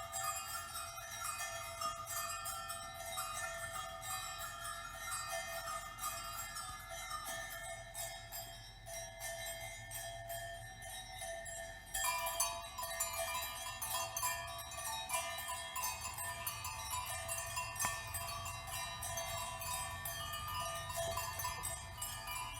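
Dense tinkling and chiming of many overlapping bell-like notes over a steady low hum. It thins out for a few seconds, then comes back suddenly fuller and louder about halfway through.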